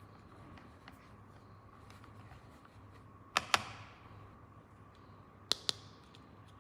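Plastic toy pieces clicking as they are handled and set down, in two pairs of sharp clicks, the first about three and a half seconds in and the second about five and a half seconds in, over a faint steady hum.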